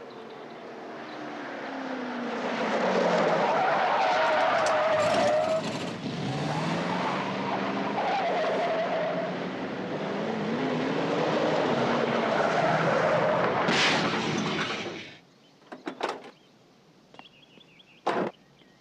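Car engine revving up and down with tyres skidding, building up over the first few seconds and cutting off suddenly about fifteen seconds in. Two short knocks follow near the end.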